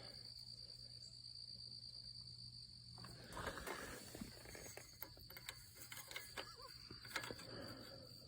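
Faint, steady chirring of crickets, with scattered light clicks and rustling from about three seconds in.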